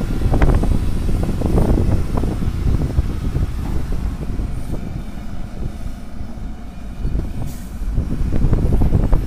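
Heavy diesel engines running: a tipper truck pulling away over rutted ground, with knocks and rattles in the first two seconds, and a Tata Hitachi excavator working. The rumble eases a little in the middle and rises again near the end.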